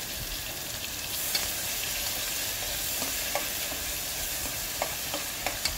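Wet onion, garlic and tomato paste sizzling as it fries in hot oil in an aluminium pressure cooker, with a steady hiss. A metal spoon stirring it clinks against the pot several times, more often near the end.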